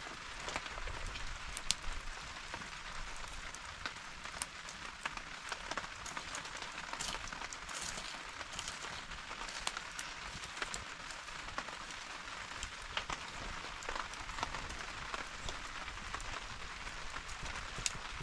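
Steady rain falling, a continuous hiss with many scattered sharp drop ticks.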